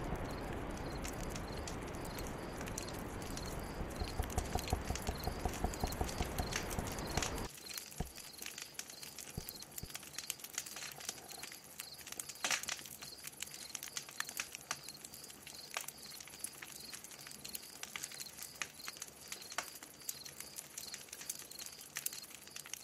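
Ambient soundtrack: a steady rushing noise that cuts off suddenly about seven and a half seconds in. After it come scattered clicks and taps over a faint, evenly repeating high chirping.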